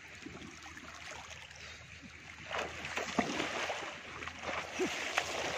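Shallow seawater sloshing and splashing around a person's legs as he wades through it, louder from about halfway through.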